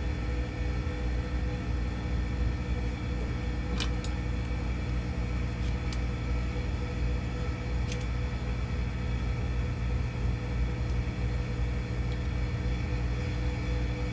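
Rotary phase converter running with a steady electric hum, with a few faint clicks about four, six and eight seconds in.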